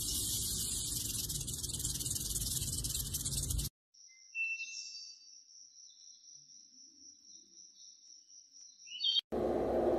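Rattlesnake shaking its tail rattle: a dense, high buzz that cuts off suddenly a little under four seconds in. A faint, steady, high-pitched tone follows, and a loud rushing noise starts near the end.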